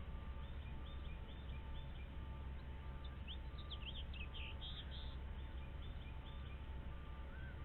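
Birds chirping over a steady low rumble. Faint short calls repeat at regular intervals, and a louder flurry of quick high chirps comes a little past the middle.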